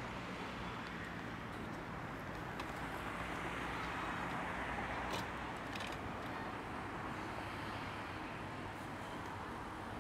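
Steady city street traffic noise, swelling briefly as a vehicle passes about four to five seconds in, with a few faint clicks.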